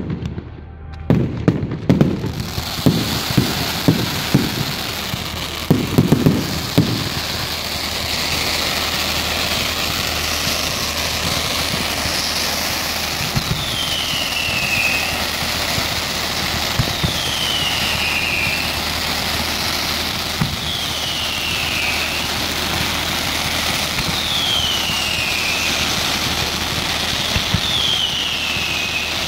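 Many fireworks and firecrackers going off at once: sharp bangs in the first few seconds, then a dense, continuous crackle and hiss. From about halfway on, a short falling whistle repeats every three to four seconds.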